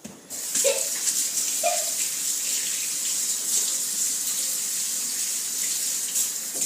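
Water running from a tap as dough-sticky hands are rinsed under it: a steady hiss that comes on suddenly and cuts off near the end.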